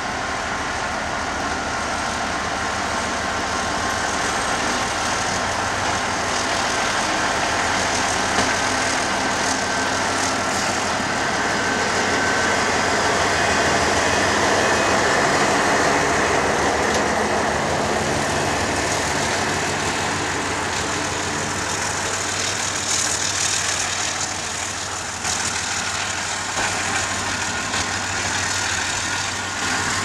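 Diesel freight locomotive running as it approaches and passes close by, its steady engine drone growing to its loudest about halfway. In the last third the loaded coal wagons roll past with rumbling and clicks of wheels on the rail.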